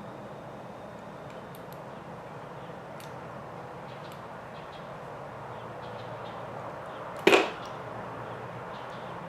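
Faint clicks of small RC kit parts being handled during assembly, with one sharp knock or snap about seven seconds in, much louder than anything else.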